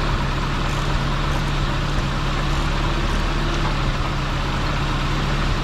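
Nissan 240SX's KA24E 2.4-litre four-cylinder engine idling steadily.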